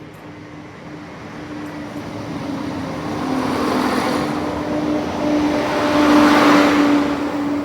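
Class 170 Turbostar diesel multiple unit approaching and passing, its engine note and the rushing wheel noise growing louder to a peak about six seconds in, then easing.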